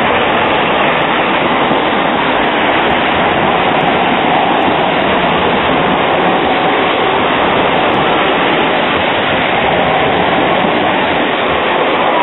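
Bombardier Flexity Swift low-floor tram running close past a platform, with a steady loud rushing noise of its wheels on the rails and a faint tone over it.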